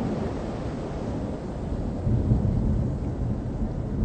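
Low, rolling thunder rumbling steadily, swelling louder about halfway through.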